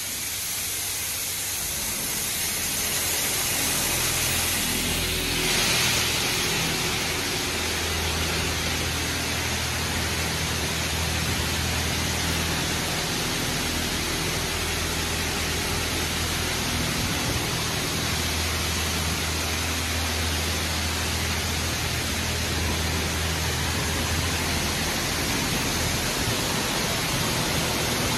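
PDQ LaserWash 4000 touchless car wash spraying high-pressure water over a car: a steady hiss of spray, briefly harsher about five seconds in, over a low pump hum that swells twice.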